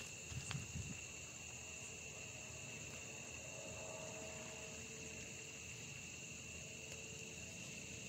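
Crickets chirring steadily, a continuous high-pitched trill. A few soft low rustles or thumps come in the first second.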